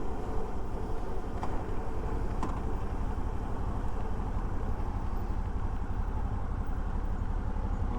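Suzuki V-Strom 650's V-twin engine running steadily under way, with road and wind noise as a low, even rumble. There are two faint clicks about a second apart early on.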